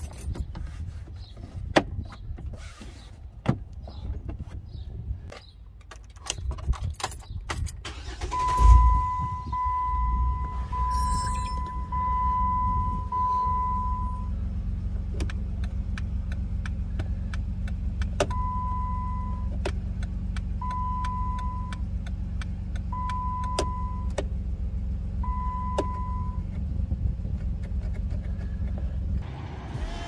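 Plastic lower dash trim on a Jeep Wrangler JKU snapped and pressed into place, with clicks, knocks and the hanging keys rattling. About 8 seconds in the Jeep's 3.8 L V6 starts and settles to a steady idle, with a run of single-pitch warning chime beeps and the clicking of the turn-signal flasher as the newly fitted turn signal switch is tested.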